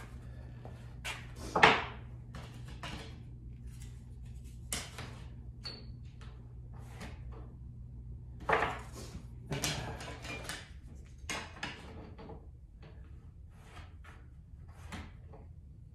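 Tools and a wooden block being handled on a workbench: scattered knocks, clatter and brief scrapes, the loudest a sharp knock near the start. Under them a low steady hum stops about ten seconds in.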